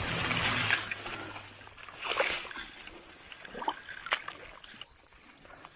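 Water sloshing and splashing as a person wades in, with a few separate splashes after the first second. Background music fades out early.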